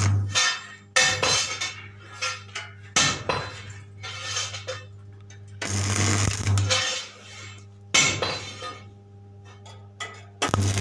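Arc welding machine humming steadily, with irregular bursts of metallic clinking and crackling from welding work on steel; the hum swells during a few longer bursts as the arc draws current.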